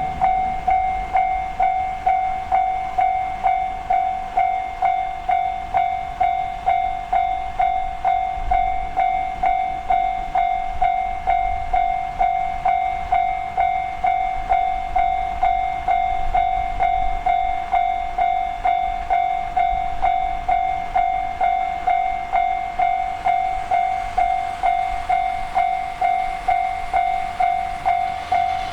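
Japanese railway level crossing alarm bell ringing its steady "kan-kan" warning, about two strikes a second, while the crossing is closed for a train.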